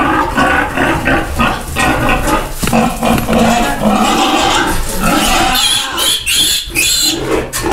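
Piglets squealing as they are chased and caught, mixed with the loud grunting of their upset sow. The calls run on without a break, with the shrillest squeals toward the end.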